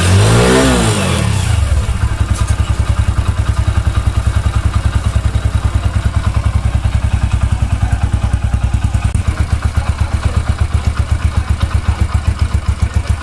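Freshly rebuilt single-cylinder Hero motorcycle engine running. It gives a quick rev that falls away about a second in, then settles into a steady idle with a regular, even putter. Under it is a rattling 'gor-gor' noise that the mechanic puts down to the clutch basket wobbling on its mounting rubber.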